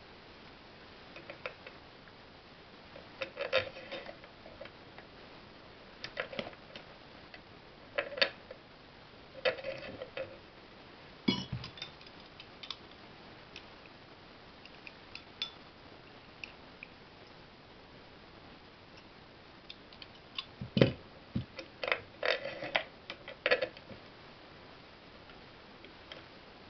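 Metal parts of an electric motor clinking and knocking as the end shield is worked onto the housing over its studs: irregular clusters of small clicks and taps, with a heavier knock about a third of the way in and another near the end.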